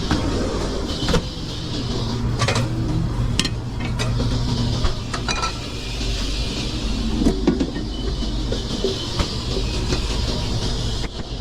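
Commercial kitchen line: a steady low hum of equipment and a constant hiss, with scattered sharp clanks of pans and utensils.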